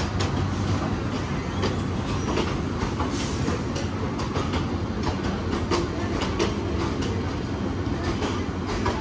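Lalmoni Express intercity train passing through the station, a steady rumble with its wheels clattering over the rail joints in quick, irregular clicks.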